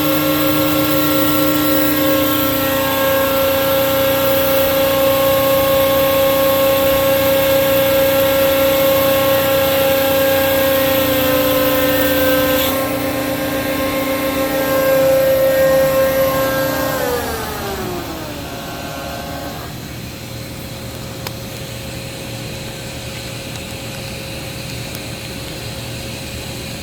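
Rexroth AP2D25 hydraulic piston pump running on a test stand with a steady whine and hiss. The hiss drops off partway through, and about seventeen seconds in the whine falls in pitch as the stand spins down, leaving a quieter steady hum.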